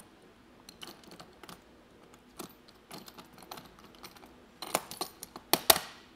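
Scattered light clicks and taps of hand work with a screwdriver at sticker-covered bolt holes in the end of a rooftop tent's shell, with a louder run of sharp clicks near the end.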